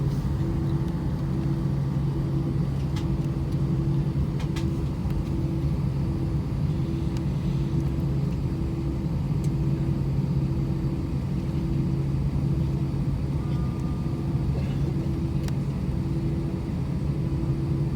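Cabin noise of an Airbus A319 on the ground before takeoff: a steady low hum and rumble from the aircraft, with a fainter tone pulsing on and off about once a second.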